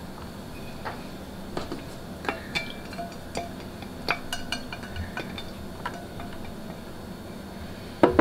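Light clinks and taps of a measuring cup and spatula against a steel saucepan as heavy cream is poured in and the cup is scraped out, scattered a few a second, some with a brief ringing note. A louder knock comes near the end.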